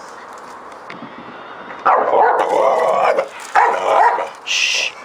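Dog barking: quiet for the first two seconds, then a long run of loud barks and a shorter run after it, with a brief hiss near the end.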